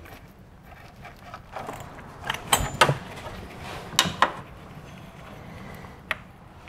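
A wrench working the 10 mm nuts on the exhaust-side flange of an EGR valve: scattered sharp metallic clicks and knocks, a cluster of them a little past the middle.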